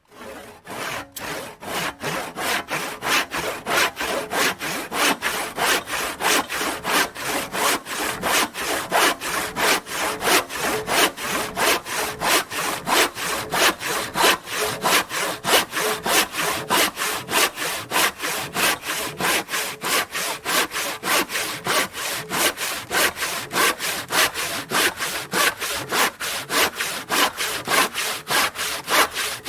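Handsaw cutting through wood in steady back-and-forth strokes, about three a second, each stroke a rasping rush of sound.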